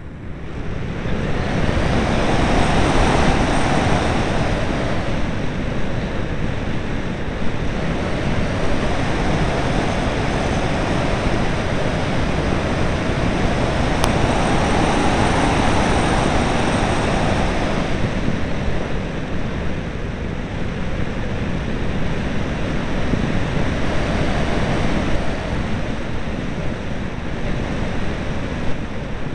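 Airflow rushing over the microphone of a camera mounted on a flying RC plane, a loud steady noise that swells twice and eases off in the last third.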